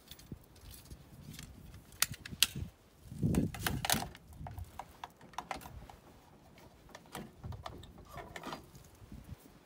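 Hard plastic clicks and knocks as a tool is seated in a machined HDPE scabbard clamped to a UTV roll bar and a threaded locking knob is turned. Two sharp clicks about two seconds in are followed by the loudest cluster of knocks between three and four seconds in.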